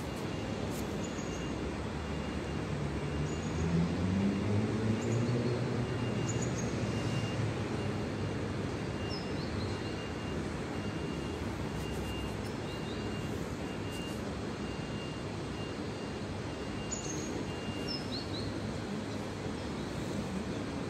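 Steady urban background noise, with a motor or engine swelling and rising in pitch about four seconds in, then fading back. Small birds give short high chirps now and then.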